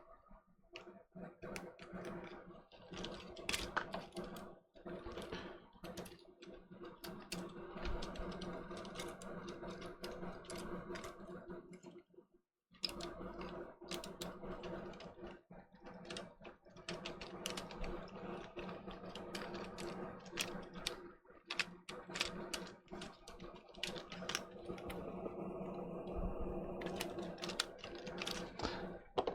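Small plastic clicks and taps as a PS5 DualSense controller's circuit board and parts are handled and pressed back into the plastic casing, over a steady low hum.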